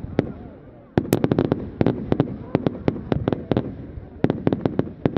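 Fireworks going off: a rapid volley of sharp bangs and cracks starting about a second in, with a few more bangs near the end.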